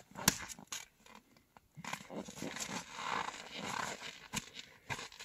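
A single sharp axe blow into a log on a chopping block, about a second in, then softer knocks and scrapes as the axe and wood are worked on the block.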